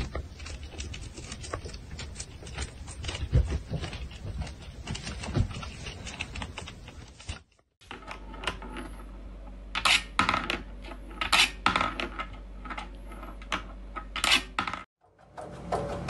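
A stretch of dense small clicks and scrapes, then a run of sharp taps and light metallic clinks as a cat paws at a wooden treat toy with a metal wire loop.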